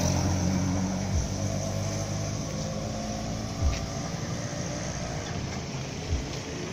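Modified 1994 Hindustan Contessa's diesel engine idling steadily. Three short low thumps come about two and a half seconds apart.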